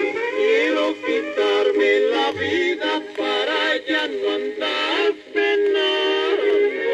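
An old mariachi record of a vocal duet playing on a turntable: two voices singing together with vibrato over the mariachi band. The sound is thin, with little bass or treble, as an old disc recording is.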